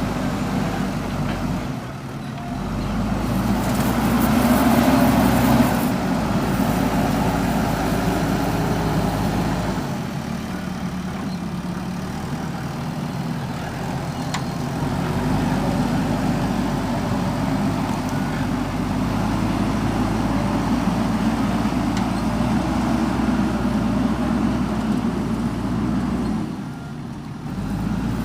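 JCB backhoe loader's diesel engine running under working load as it digs soil, the engine note swelling and easing with the load. It drops away briefly about two seconds in and again near the end.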